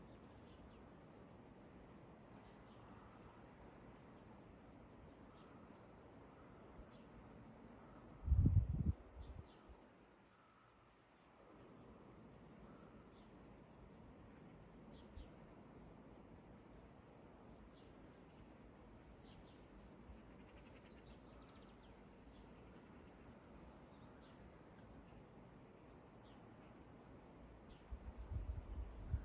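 Crickets trilling in a steady, high-pitched drone, with a few faint short chirps over it. A brief low thud comes about eight seconds in, and low knocking starts near the end.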